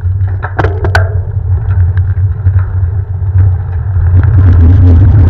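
Wind buffeting the microphone of a camera on a moving road bike: a heavy, steady low rumble with a few sharp clicks in the first second. It grows louder and hissier about four seconds in.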